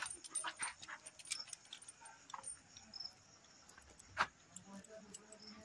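A dog making faint small sounds, with light clinks from its chain leash and one sharp click about four seconds in.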